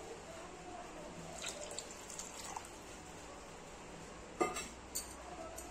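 A pan of drumstick sambar simmering, with a soft bubbling haze and two sharp clicks near the end.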